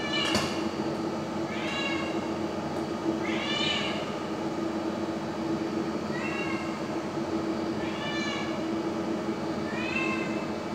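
A cat meowing six times, short calls that rise and fall in pitch, roughly one every two seconds, over a steady low hum.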